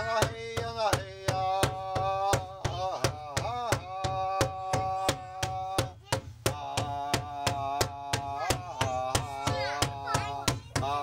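A large rawhide-headed drum struck with a padded beater in a steady beat, about three strikes a second, under a voice singing a chant in long, wavering notes. The singing breaks off briefly about six seconds in, then goes on.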